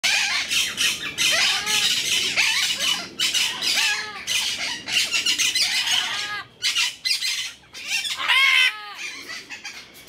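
Amazon parrots squawking loudly, harsh screeches with arching, rise-and-fall calls one after another almost without pause, easing off near the end.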